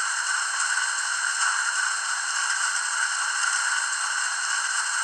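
Water-refill sound effect from the sound decoder of a Rivarossi H0 Union Pacific Big Boy model locomotive, played through the model's small onboard speaker: a steady hiss of water filling the tender.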